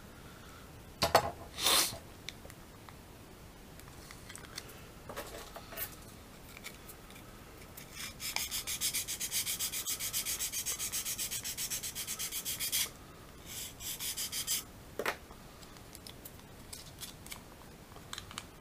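Plastic model-kit part being smoothed by hand with a thin abrasive tool: rapid back-and-forth rasping strokes, about four or five a second, for several seconds in the middle, then a few more strokes. About a second in, two short scrapes.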